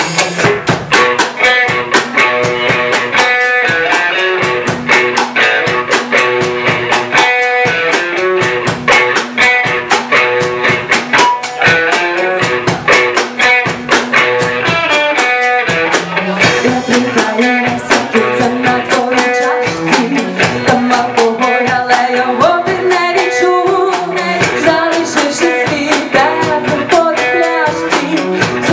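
Live rock band playing with electric guitar, bass guitar and drum kit, and a woman singing over it.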